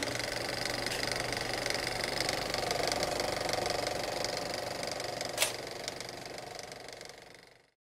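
Film projector running: a steady, rapid mechanical clatter with a whir, a sharp click about five and a half seconds in, then fading away near the end.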